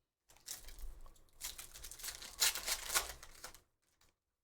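A foil trading-card pack being torn open and its wrapper crinkled: a run of rustling rips that stops short about three and a half seconds in, with the sharpest tears near the middle.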